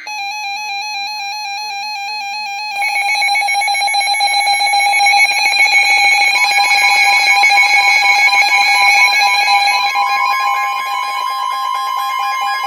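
Electronic alert tones of an Emergency Alert System severe thunderstorm warning: a pulsing, buzzy beep tone, joined about 3 s in by a louder, faster-pulsing layer. About 10 s in, a steady single tone near 1 kHz starts and keeps sounding, the weather radio warning alarm that comes before the spoken message.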